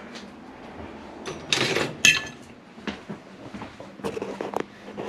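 Hand-handling noise of an aluminum meal-kit tray as mashed potatoes are spread in it: a brief rustling scrape about one and a half seconds in, a sharp click just after, then a few soft knocks.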